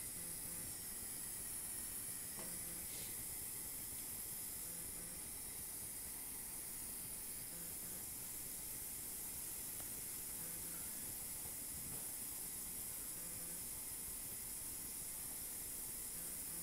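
A steady hiss that does not change.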